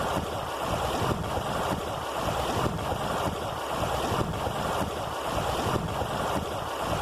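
Snowmelt water rushing in a stream, a steady, even rush of running water.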